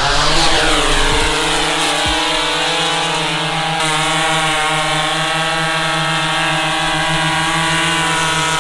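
Quadcopter drone's propellers whirring at takeoff: a loud multi-toned whine that slides down in pitch over the first few seconds, then holds steady as the drone hovers.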